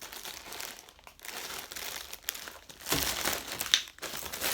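Packaging crinkling and rustling as it is handled, in irregular crackles that get louder about three seconds in.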